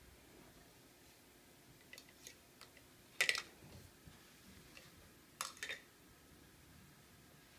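Small plastic toy dishes and utensils being handled, clicking and clacking. A few faint clicks come first, then two louder clatters, about three and five and a half seconds in.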